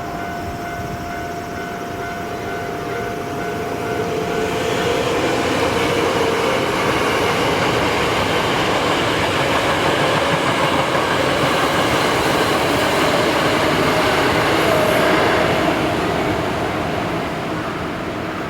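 Hankyu Kyoto Line electric train passing over a level crossing: the rumble of wheels on rail builds about four seconds in, stays loud for about ten seconds, then fades near the end. A steady ringing tone from the crossing's warning signal fades out in the first few seconds.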